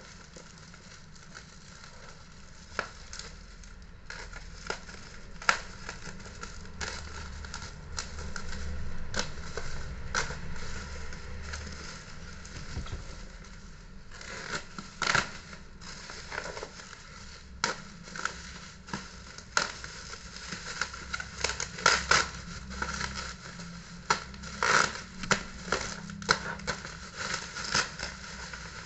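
Plastic bubble wrap crinkling and rustling as it is handled and unwrapped, with many sharp clicks and snaps, coming thicker about halfway through.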